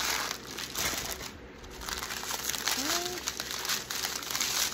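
Small plastic bags of diamond painting drills crinkling as a strip of them is handled and sorted, with an irregular, crackly rustle that eases off briefly about a second and a half in.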